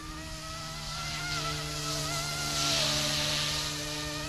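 YXZNRC F09 Black Hawk, a small electric RC scale helicopter, in flight: a steady high whine from its motor and multi-blade rotor, with a pitch that wavers. It grows louder to a peak about three seconds in, then eases off.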